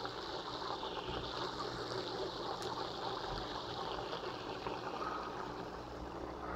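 Steady trickle of water circulating in a home freshwater aquarium, with a faint low hum underneath.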